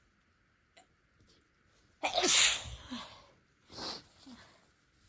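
A person sneezing: one big, loud sneeze about two seconds in, lasting about a second, from a tickled nose. A shorter, quieter burst of breath follows about two seconds later.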